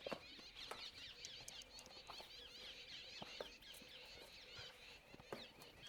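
Faint, continuous high chirping of small birds, with a few soft clicks and taps from hands working a bicycle inner tube into its tyre.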